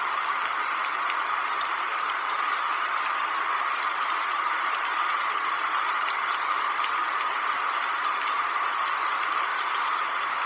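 A steady, even hiss of noise, unchanging, with no speech over it.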